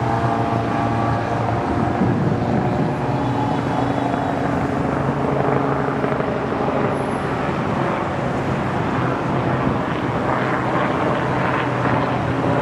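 Twin-engine Embraer regional jet rolling out after landing: a steady jet engine drone with a low hum and a few steady tones that fade in the first couple of seconds. Near the end it gives way to a louder rushing noise.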